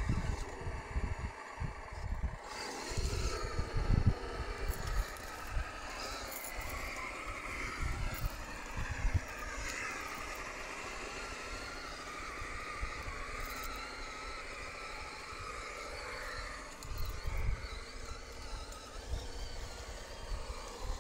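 Electric motor and gearbox of a Tamiya Toyota Hilux High-Lift RC crawler truck whining as it drives, the whine wavering up and down in pitch. Low bumps and rumbles come and go, most at the start and near the end.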